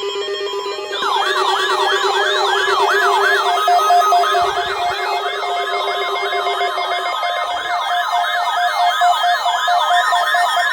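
Layered electronic siren tones: a fast yelp sweeping up and down about three times a second, a quicker warble above it and a few steady tones, starting about a second in. A low steady tone under them stops about seven seconds in.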